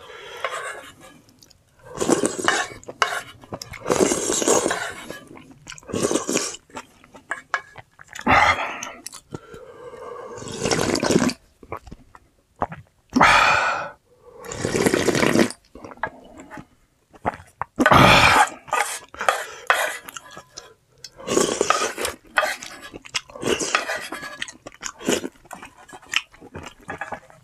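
A person eating spicy instant ramen, with chewing and slurping mouth noises in irregular bursts and utensils knocking against the bowl now and then.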